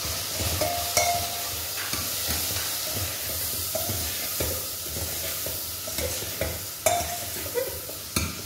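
Cauliflower and peas with spice powders sizzling in oil in a pressure cooker, stirred with a ladle that scrapes and knocks against the pot's metal sides. A steady sizzle runs under the stirring, with sharp clinks about a second in, about seven seconds in and near the end.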